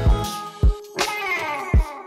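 Background music with a steady beat: a deep kick drum under pitched melodic lines.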